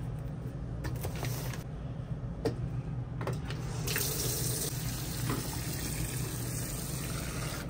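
Top-loading washing machine filling, water rushing steadily into the tub, with the rush growing brighter about four seconds in. A few light knocks come in the first half as the laundry is handled.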